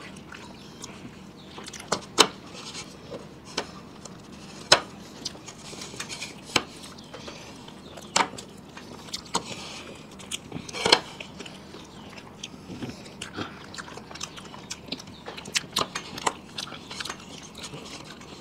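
Eating sounds of several people biting into and chewing soft bun burgers: irregular wet clicks and smacks, with a few sharper snaps.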